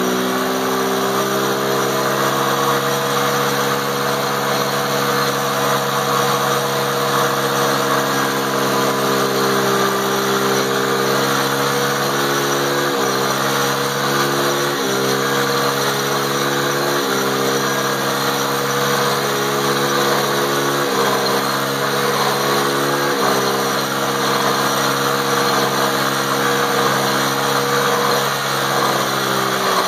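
Small 50cc youth quad's engine held at high, steady revs on the rev limiter during a chained stationary burnout, rear tyres spinning on wet, chain-lubed ground. The revs jump up at the start, dip briefly several times in the middle, and drop back near the end.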